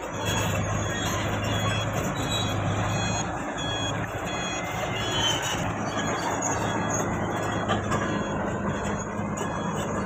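Kato KR-25H rough-terrain crane's diesel engine running as the crane drives slowly over a rough dirt track, with short high-pitched metallic squeaks repeating over the steady engine hum.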